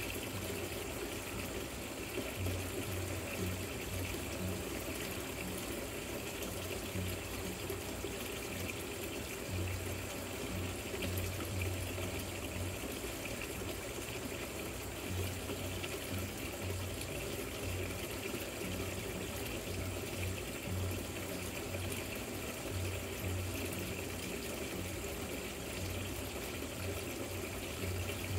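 Water splashing steadily down a rock-style patio fountain, with a low hum that comes and goes.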